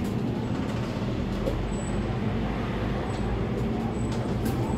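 Scania K320 articulated bus's five-cylinder engine running steadily as the bus moves off along the lane, heard from the driver's cab, with tyre and road noise.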